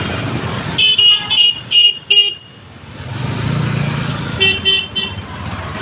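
Busy street traffic with a vehicle horn beeping in short quick toots: about five in a cluster near the start, then three more near the end. Between the two clusters an engine's rumble swells as a vehicle passes close.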